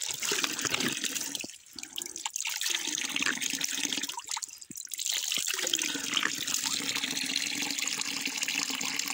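Water trickling and splashing over rocks in a small stream, a steady wash of sound that briefly drops away twice in the first half.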